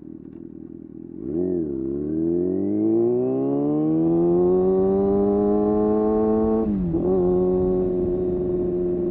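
Kawasaki ZX-6R inline-four sportbike engine: a quick rev blip about a second in, then a long pull with the pitch climbing steadily. About seven seconds in the revs drop sharply, as on a gear change, and the engine holds a steady note after it.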